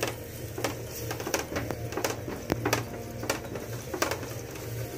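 Silicone spatula stirring and scraping yogurt into a thick chilli masala in a nonstick frying pan: irregular soft taps and scrapes against the pan, over a steady low hum.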